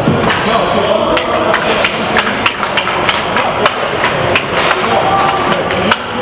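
Hockey game play: sticks, puck and players knocking and clacking many times, with sharp thuds against the boards, over the chatter of voices.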